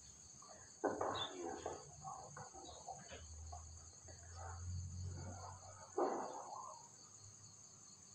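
Crickets trilling steadily at night, with faint muffled sounds about a second in and again near six seconds.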